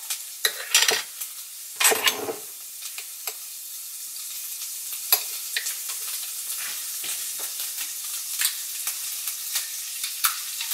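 Spaghetti frying in a pan with a steady sizzle. Over it come sharp clicks and knocks: a cluster about two seconds in as a glass jar's lid is twisted open, then lighter ticks as a metal spoon scrapes sauce out of the jar.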